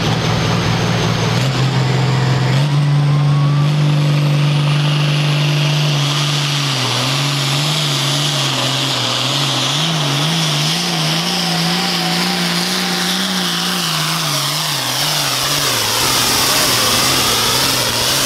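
Pulling tractor's diesel engine running hard under full load as it drags the weight sled. The engine note holds steady at first, then surges up and down about once a second for the rest of the pull.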